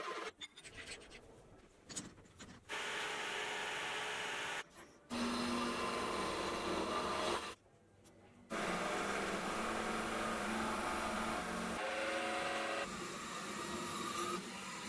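Milling machine spindle running while a drill cuts holes in an aluminum block, in short clips cut one after another. A steady machine whine at changing pitches, with two short quiet breaks between clips.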